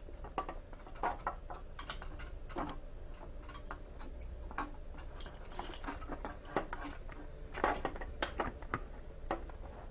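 Irregular light clicks and rustles of a cable being handled and fed through a grommet hole and a coiled cord, plastic parts ticking against each other, over a faint steady hum.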